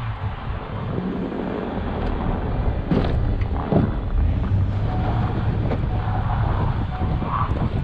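Snow-plowing vehicle's engine running steadily, with wind noise on the microphone and a couple of sharp knocks about three seconds in.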